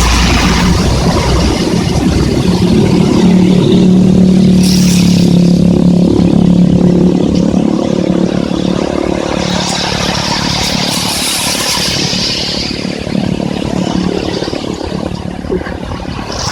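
Heavy rain with vehicles passing on the wet highway: one vehicle's engine hum swells about three seconds in, is loudest around four seconds, then fades away, with tyre hiss rising and falling over the steady rain.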